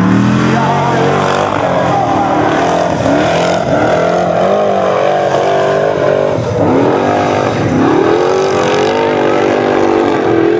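Formula Offroad car's engine revving hard as it climbs a steep sand hill, its pitch rising and falling again and again with the throttle.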